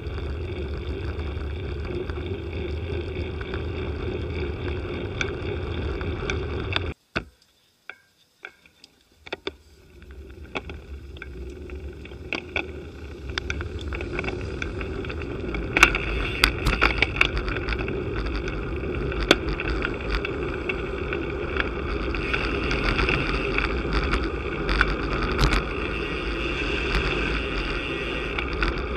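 Wind rushing over a bike-mounted camera's microphone, with low road rumble from riding and scattered sharp clicks and knocks in the second half. The sound drops out briefly about seven seconds in.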